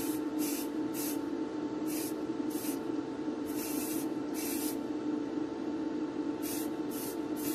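Aerosol spray can of yellow paint sprayed in about ten short bursts, each a quick hiss, with a pause of over a second about two-thirds through. A steady motor hum runs underneath.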